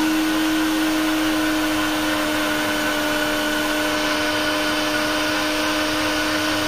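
Electric countertop blender motor running at a steady high speed, blending a cold coffee mix of coffee, milk powder, sugar and cold water. It gives one constant whining pitch.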